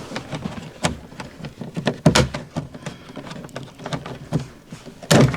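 Irregular plastic clicks, knocks and scraping as a door speaker is pried off its retaining clips with a plastic trim tool. There is a sharper knock about two seconds in and another near the end.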